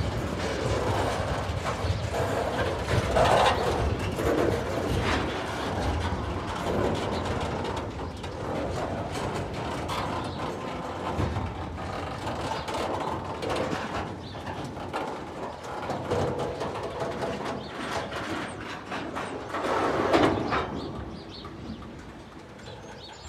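Tasrail container freight wagons rolling slowly past, their wheels and couplings clanking with occasional squeals as the train brakes to a stop. The sound gets quieter near the end.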